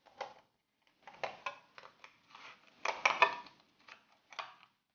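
Scissors cutting a thin mica insulating sheet: a string of short, crisp crunching snips and clicks at irregular intervals, loudest about three seconds in.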